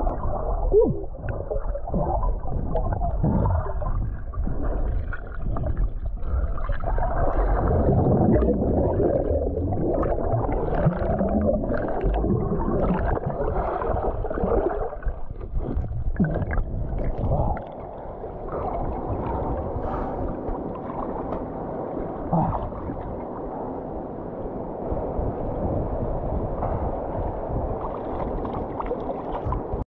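Water and air bubbles heard muffled from underwater in a stream pool, a dense low wash with no sharp high sounds, which gets somewhat quieter after about 17 seconds.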